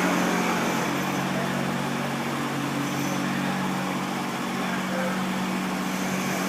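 Steady hum of running machinery: a low drone under a rushing noise, easing off a little after the first second.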